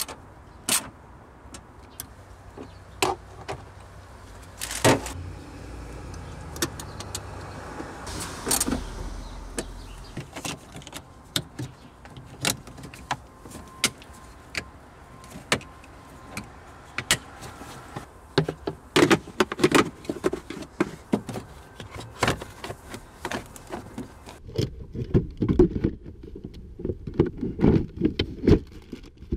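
Scattered clicks, knocks and rattles of hand work on a car's interior: a socket wrench on a floor bolt, plug connectors being fitted, and plastic trim panels being handled and pressed into place. Denser low knocks come near the end.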